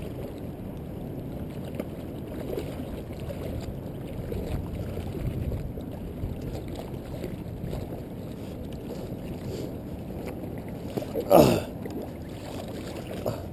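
Steady low rush of wind and water on the microphone, with one short falling call about eleven seconds in.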